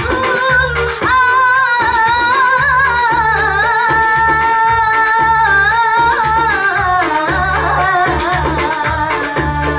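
A young woman singing sholawat solo in a long melodic line of held, wavering notes, over a steady low rhythmic beat.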